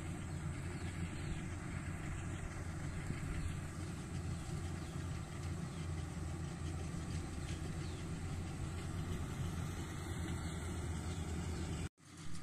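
Steady low drone of a rice combine harvester's engine running as it reaps, with a momentary dropout near the end.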